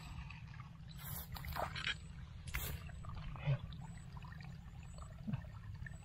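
Shallow running water in a rice-field channel trickling, with a few brief splashes of hands or feet stirring the water, over a steady low rumble.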